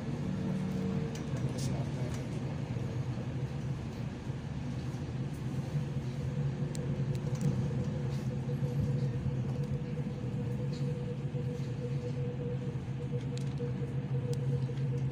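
Hamburg U-Bahn DT4 train running at steady speed, heard from inside the passenger car. A steady low drive hum with a fainter higher tone above it sits over the rumble of the wheels on the rails.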